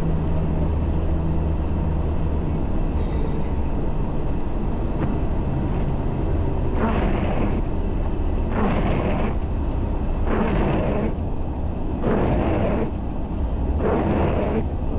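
MAN truck's diesel engine running steadily under way, a continuous low drone. From about halfway through, a rushing noise swells and fades about every two seconds.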